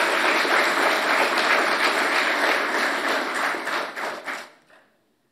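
Audience applauding, the clapping dying away about four and a half seconds in.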